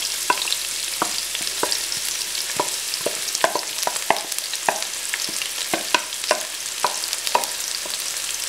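Sliced onions frying in hot desi ghee in an aluminium pot: a steady sizzling hiss with irregular sharp crackles and ticks as a wooden spoon works them in.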